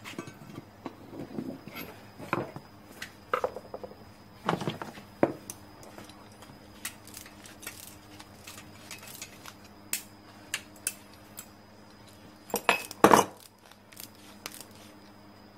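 Metal pipe pieces and a hand tool being handled on a workbench: irregular metallic clinks, scrapes and knocks, with a louder cluster of knocks about thirteen seconds in.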